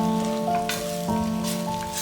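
Background music of held melody notes over food sizzling in a frying pan. The sizzle grows louder in patches from about a second in.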